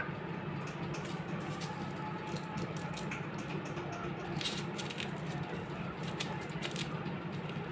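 Steady low hum with scattered light clicks and ticks, most of them in the second half, from hands handling a small plastic drink packet and a knife.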